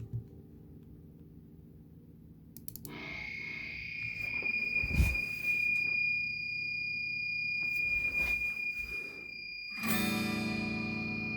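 Unwanted electronic noise in the audio output of a computer music setup while a VSTi virtual instrument is in use: a steady high-pitched whine comes in about three seconds in and holds. There is a thump a couple of seconds later, and a harsh buzz joins near the end.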